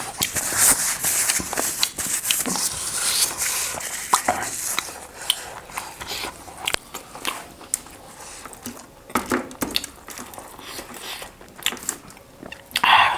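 Close-miked eating sounds: wet chewing and biting with many short smacking clicks, busiest in the first few seconds, and occasional clinks of cutlery or plates.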